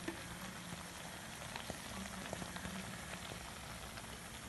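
Thick mushroom masala bubbling in a steel pan, with irregular soft pops as the liquid cooks down toward a dry roast.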